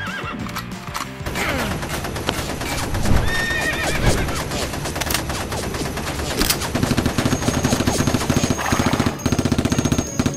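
Motorised Nerf blaster firing full-auto: a fast, even rattle of dart shots in two bursts over the second half, with a steady high motor whine, over background music. Earlier there is a shorter cluster of clicks and a gliding cry.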